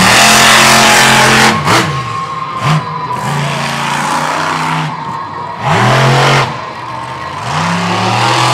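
Stone Crusher monster truck's supercharged V8 revving hard in repeated bursts, each climbing in pitch, holding, then dropping off. Two sharp bangs sound about a second apart, less than two seconds in.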